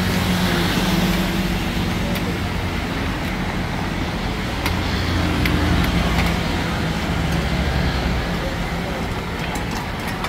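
Steady noise of gas burners running under a hot plate and a frying pan, with food sizzling. A metal ladle and spatula clink against the hot plate a few times.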